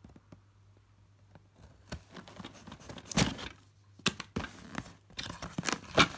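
Scissors slitting the packing tape on a cardboard box, then the tape tearing away and the cardboard flap being pulled open, with rustling and scraping. The loudest tear comes about three seconds in, and a few sharp clicks and more rustling follow.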